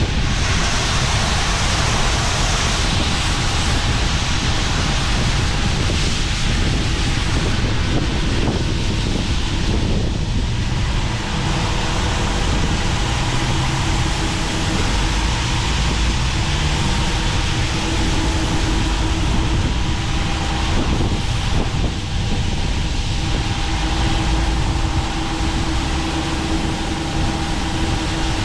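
Heavy harvest machinery running steadily, with wind noise on the microphone. A steady mechanical hum becomes clearer about twelve seconds in.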